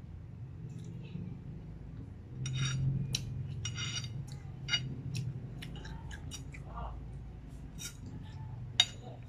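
Metal fork scraping and clinking against a plate of fettuccine as pasta is twirled: a run of short clicks and scrapes, with one sharp loud clink near the end.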